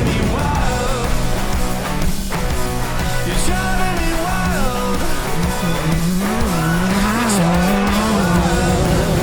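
Off-road race car engine revving up and down, mixed with background music.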